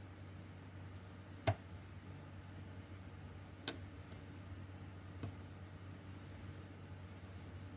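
Three light, sharp clicks from small hand tools or parts handled at a workbench while soldering a circuit board, the first the loudest, over a steady low hum.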